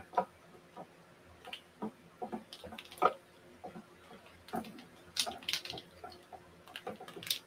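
Kumihimo bobbins (tama) on a marudai clicking and knocking against each other and the stand as they are lifted and moved around during braiding: a string of short, irregular clicks.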